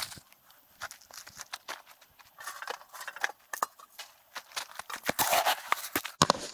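Irregular light taps and knocks with short rustling noises, changing abruptly near the end.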